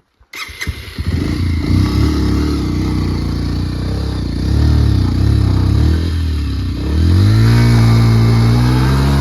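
Bajaj Pulsar motorcycle's single-cylinder engine starting and running, then revving up about seven seconds in and holding at the higher speed.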